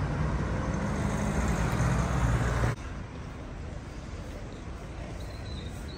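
Road traffic: a motor vehicle's engine runs close by with a steady low hum over street noise. It cuts off suddenly about three seconds in, leaving quieter steady traffic noise.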